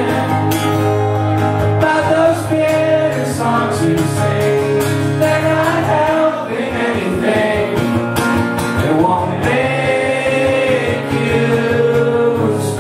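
Live music: an acoustic guitar strummed under a man singing into a microphone.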